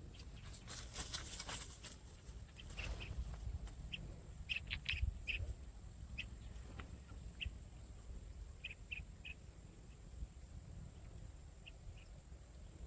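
Birds chirping in short scattered calls, over a low steady rumble, with some rustling near the start.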